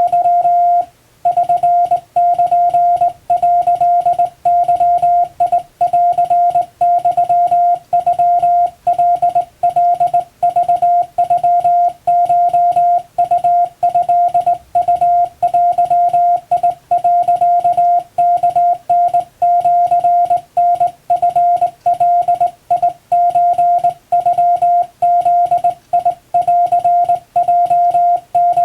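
Japanese (wabun) Morse code sent by hand on a telegraph key: a single beeping tone keyed on and off in dots and dashes, with one longer pause near the start.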